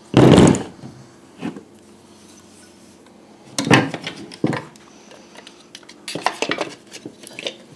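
Handling noise of a car's electric cooling fan assembly, its plastic shroud and fan motor moved about on a bench: one loud clunk at the start, then scattered knocks and clicks.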